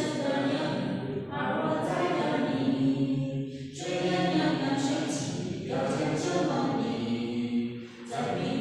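A class of voices reading a text aloud together in unison, in phrases of a second or two with short breaks between them.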